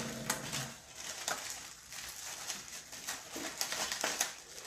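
Craft paper rustling and crinkling in irregular small clicks as a red paper flower is handled and shaped by hand, with a low voice humming briefly at the start.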